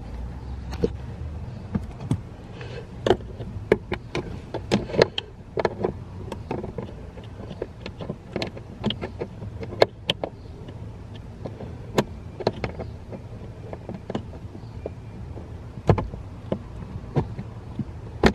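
Adjustable wrench clicking and knocking against a tight screw and its metal mount under a car's dashboard, in irregular sharp clicks as the wrench is refitted and turned, over a low steady hum.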